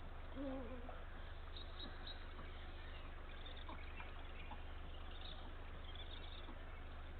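Eurasian eagle owl giving one short, low call about half a second in. Faint chirps of small birds follow over a steady low background hum.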